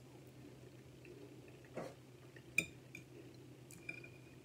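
Quiet eating sounds: a metal fork scraping and clinking lightly against a plate a few times while scooping beans and rice, two of the clinks ringing briefly.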